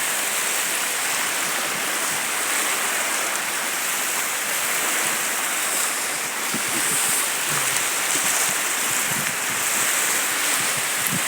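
Ocean surf washing on the beach, a steady hiss of waves.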